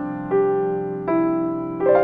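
Background piano music: slow, gentle single notes struck about once every three-quarters of a second, each ringing and fading.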